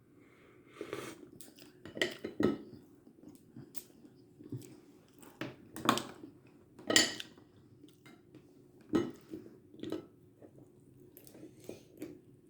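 Dishes and utensils clinking and knocking in irregular short strokes, the loudest about six and seven seconds in.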